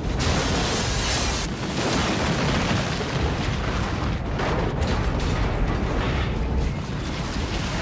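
Film sound effects of a starship crash: a continuous heavy rumble with crashing, explosive surges, strongest right at the start.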